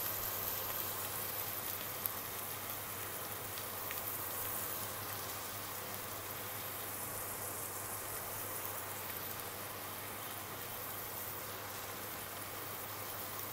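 Chopped onion, celery and garlic sizzling gently in olive oil over low-medium heat in a stainless steel pot: a steady frying hiss that eases off slightly as it goes on. A single click sounds about two seconds in.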